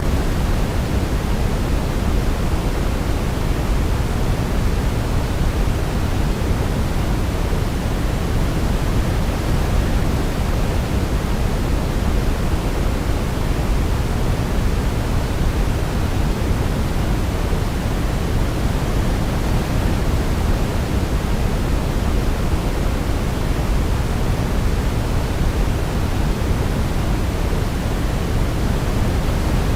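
Steady white noise for baby sleep: an even, unbroken hiss weighted toward the low end, with no melody or other sound standing out.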